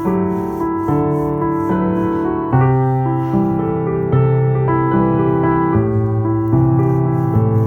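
Gentle piano background music: slow, sustained chords and notes changing about once a second.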